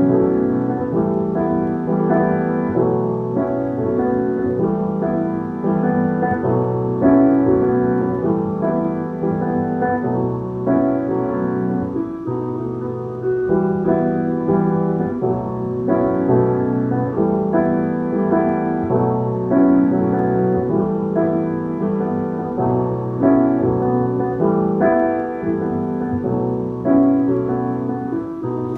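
Piano playing a jazz-waltz vamp in 3/4 that alternates Em7 and B7sus4 chords, both hands striking syncopated chords again and again. It is played at a reduced practice tempo of 80%.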